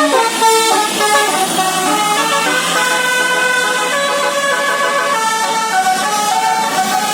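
Telolet basuri musical bus air horns playing tunes: several held horn notes sound together and change pitch in steps.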